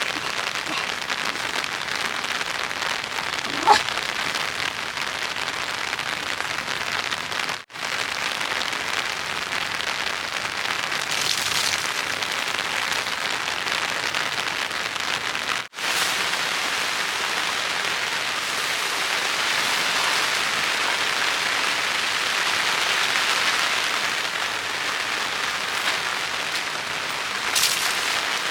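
Steady rain falling, an even hiss of many drops, with a sharp tap of a single drop about four seconds in and again near the end. The sound cuts out for an instant twice.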